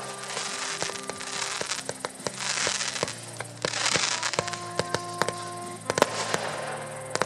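Fireworks firing: many sharp bangs and crackles from comets and small shells, with hissing stretches about two and a half and four seconds in. Music with slow, sustained chords plays under them.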